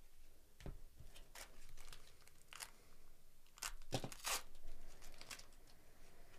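Foil wrapper of a 2024 Topps Series 1 baseball card pack being torn open and crinkled in gloved hands, with cards rustling against each other. A string of short rips and crackles, the loudest about four seconds in.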